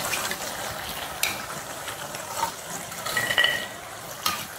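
Rice-flour balls sizzling as they deep-fry in hot coconut oil, with a metal slotted spoon stirring and scraping in the pot. A couple of sharp clicks stand out, about a second in and near the end.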